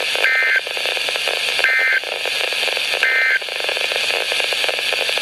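NOAA Weather Radio SAME end-of-message data tones: three short buzzy two-pitch bursts about a second and a half apart, over steady radio static. They signal that the alert message has ended.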